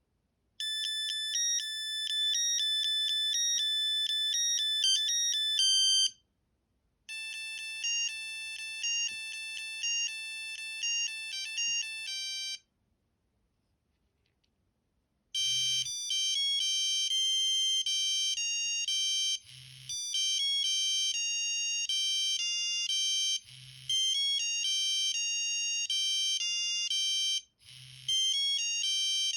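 Sony Ericsson T68i default ringtones played one after another through the phone's small speaker: two short electronic melodies of about five to six seconds each, then a longer one with a low drum-like thump about every four seconds.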